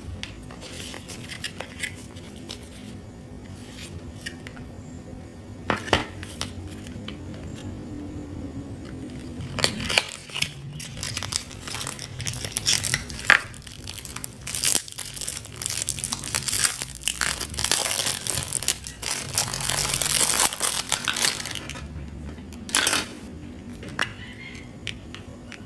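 Hands unpacking small items: cardboard and plastic packaging rustling and crinkling, with scattered clicks and knocks as boxes and a plastic compact case are handled. The crinkling gets busier and louder in the middle.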